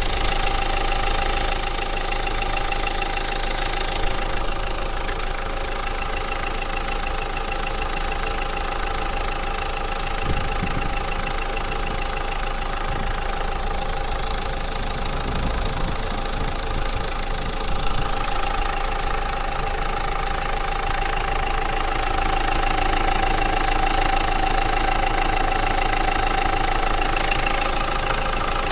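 Renault Clio 3 engine running steadily with an abnormal noise, a steady whine over a rapid ticking, that comes with no loss of power.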